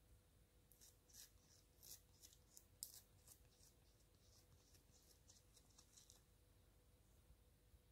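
Faint sticky crackles and small pops of soft slime being pressed and peeled out of a silicone mould by fingers, coming thick at first and thinning out after about six seconds, over a faint steady hum.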